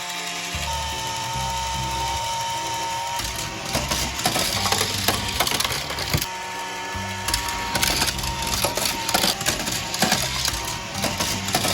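Toy parts clattering and rattling irregularly on a plastic toy track, starting about three seconds in, over steady background music.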